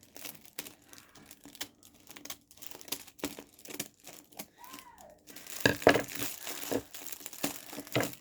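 Gift wrapping paper and tape crinkling and tearing as a taped package is cut open with scissors: irregular crackles and rustles, louder about two thirds of the way through.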